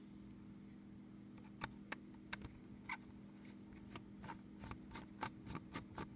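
Faint, irregular small clicks and ticks of a screwdriver and small screws being worked out of a laptop's hard disk holder, over a steady low hum. The clicks start about a second and a half in and come several times a second near the end.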